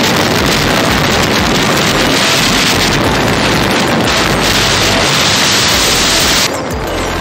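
Wind buffeting the microphone of a camera on a moving motorbike at road speed, a loud, steady rush that cuts off suddenly near the end.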